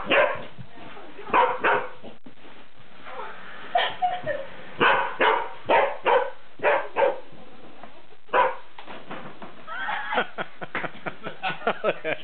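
Greyhound barking in short, sharp single barks, about a dozen spaced a second or so apart, then a quicker run of softer yips near the end as she plays.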